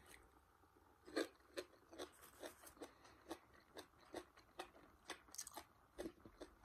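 A person chewing a mouthful of asparagus curry close to the microphone: faint, soft crunches and mouth clicks, two or three a second.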